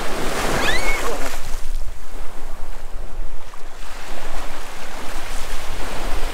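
Small surf breaking and washing up the sand at the water's edge, loudest in the first second or so as a wave breaks close by, with wind on the microphone. A brief high squeal sounds about a second in.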